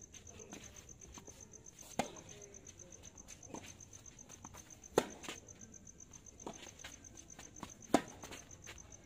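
Tennis rally: sharp pops of balls struck by rackets about every three seconds, with softer hits and bounces between; the loudest hits come about five seconds in and near the end. Insects chirp steadily underneath.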